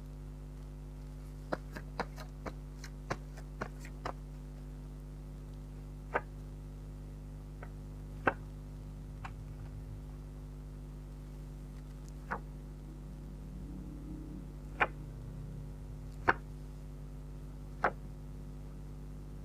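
Tarot cards being handled and laid down on a table: irregular sharp taps, several in quick succession in the first few seconds, then single taps every few seconds, over a steady electrical hum.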